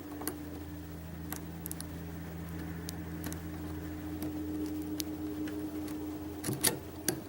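Scattered faint clicks of lock picks working inside a Mul-T-Lock Interactive cylinder, with a louder pair of clicks near the end, over a steady low hum.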